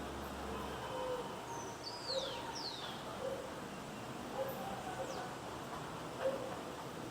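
Birds calling over a steady background hum: a few high whistled notes that slide down in pitch, and short, low, soft coo-like notes about once a second.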